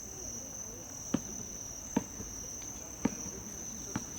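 A steady high-pitched cricket trill, with four sharp thuds about a second apart, the sound of a basketball bouncing on the court.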